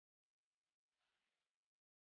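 Near silence: the track is almost empty, with only a couple of very faint hiss blips.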